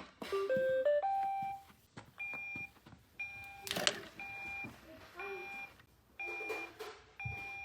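iRobot Roomba robot vacuum's electronic beeps: a quick rising run of tones, then short repeated beeps about once a second.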